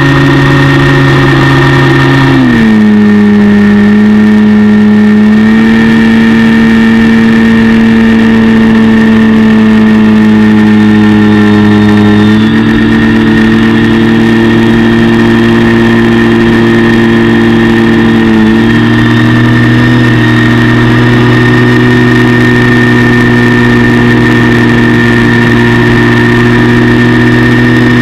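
Motor and propeller of an FPV radio-controlled model plane, heard through its onboard camera, running steadily with a constant high whine over it. The pitch drops about two and a half seconds in, then steps up and down a few more times as the throttle changes.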